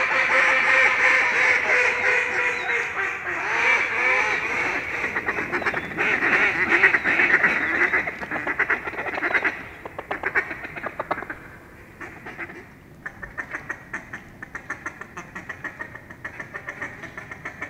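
Mallards quacking and chattering: a dense, loud din for about the first nine seconds, then fainter, sparser rapid chatter.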